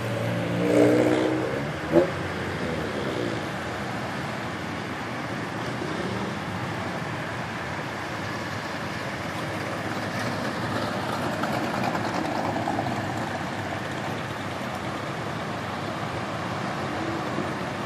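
Cars driving past one after another in a slow procession, a steady wash of engine and tyre noise, swelling slightly as a car passes about ten to thirteen seconds in.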